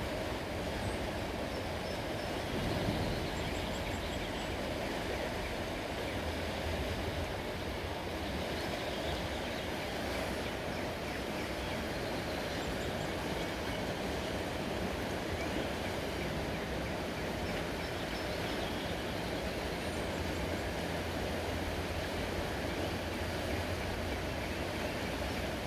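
Steady vehicle noise, a low engine rumble that neither rises nor falls, with a few faint high chirps of birds.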